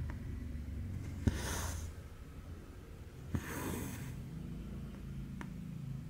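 Two stitches: each time a needle clicks through cross-stitch cloth and cotton thread is drawn after it with a short rasping hiss, over a steady low hum. A single faint click follows near the end.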